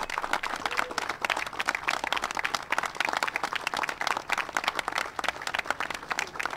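A crowd applauding: many people clapping in a dense, steady patter.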